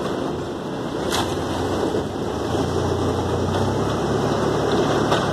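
Engine of construction machinery running steadily during a concrete pour, with a low hum that swells about two and a half seconds in and eases off near the end. A single sharp knock about a second in.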